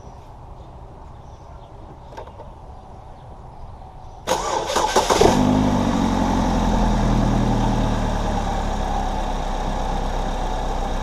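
2013 GMC Terrain's 2.4-litre four-cylinder engine cranked by the starter for about a second on a weak, 10.2-volt battery, catching and settling into idle, its speed easing down after the start.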